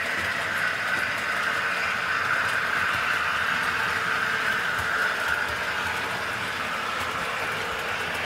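Model diesel locomotives running on a model railway layout: a steady electric-motor whine with wheel noise on the track, swelling a little in the middle and easing after about five seconds.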